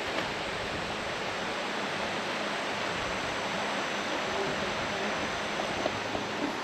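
Steady, even rushing noise with no distinct events, with faint voices now and then.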